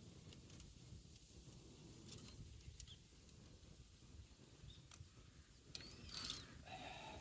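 Near silence: a faint low rumble with a few scattered light clicks, and a brief louder rustle about six seconds in.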